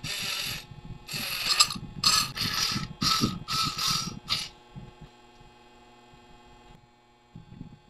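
Aluminium parts of a homemade mini drill press being handled and scraped as it is taken apart: a run of short rasping strokes for about four and a half seconds, then only a faint hum.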